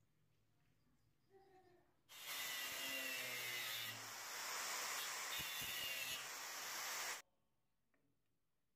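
Angle grinder with an abrasive disc grinding rust off the steel frame of an old hacksaw, a steady loud hiss with a faint whine. It cuts in abruptly about two seconds in and stops just as abruptly about seven seconds in.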